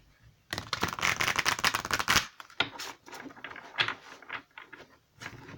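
A deck of cards being shuffled by hand: a fast run of card flicks lasting nearly two seconds, then slower, scattered flicks.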